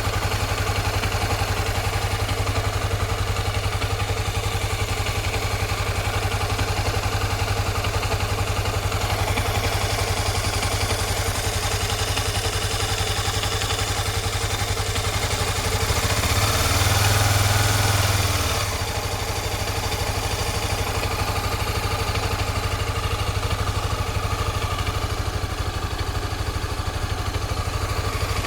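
Honda Twister 250's single-cylinder engine idling steadily, with one brief blip of revs about two-thirds of the way through. The owner hears an odd noise in it that he cannot place.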